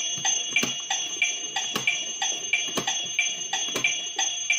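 A talking toy clock's electronic waiting tune: a looping tick-tock-like beat with high beeps, from a small plastic speaker. A few louder, irregular sharp clicks cut through it, from the toy's plastic clock hands being turned.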